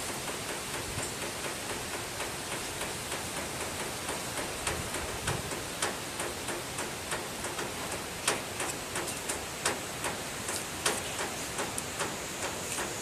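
Hands handling a small paper booklet and pulling yarn through its cover: scattered small clicks and rustles, more frequent in the second half, over a steady background hiss.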